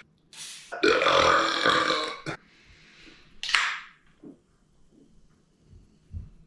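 A man's long, loud burp starting about a second in and lasting over a second, from gas built up by gulping carbonated soda. Shorter noisy bursts come just before it and again about two seconds later.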